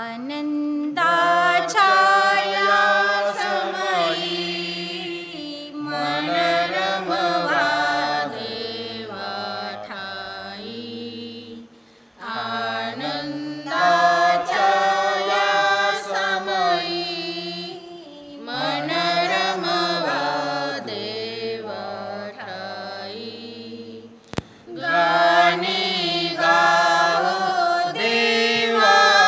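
A hymn being sung, the voices holding long notes in phrases with short breaks between lines.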